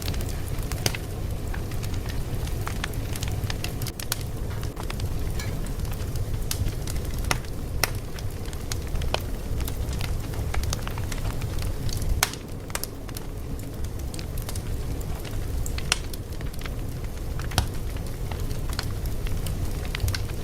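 Fire crackling: a steady low rumble with frequent sharp pops and snaps scattered irregularly throughout.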